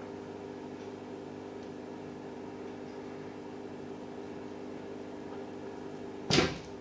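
A steady hum with several low tones held throughout, and about six seconds in one short, loud thump.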